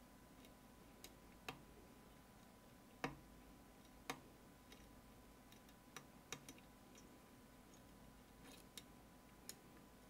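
Opnus UX 13-pin lock being picked: faint, irregular small metallic clicks of the pick and tension wrench working the pins, the loudest about three seconds in.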